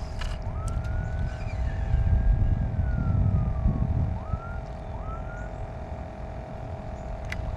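A distant siren wailing, its pitch rising, holding and falling several times, over a low rumble and a steady hum.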